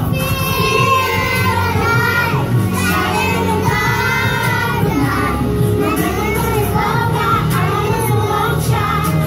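A pop song with singing and a steady bass beat, played for dancing.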